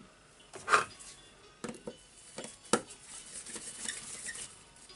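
A few separate small clicks and knocks of hard parts and hand tools being handled while a carbon brush and its cap are fitted into the brush holder of a Hitachi DH40MR rotary hammer; the loudest knock comes about a second in.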